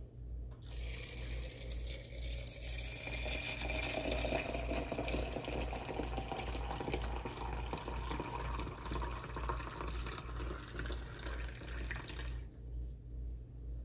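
Tap water running steadily for about twelve seconds, then shut off abruptly.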